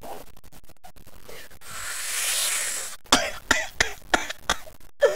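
A woman's coughing fit: a long breathy hiss about two seconds in, then about five sharp coughs in quick succession.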